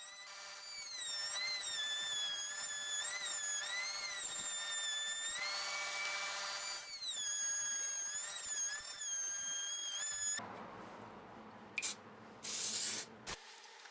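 Electric router running at high speed and cutting a round-over along the edge of a wooden table top, its whine dipping and recovering in pitch as the bit takes load. The motor stops about ten seconds in, followed by a few short rubbing or scraping noises.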